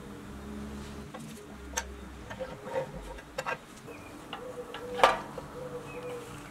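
Scattered light clicks and taps of steel axles and wheels being fitted and handled on a pressed-steel Tonka toy truck chassis, the sharpest about five seconds in.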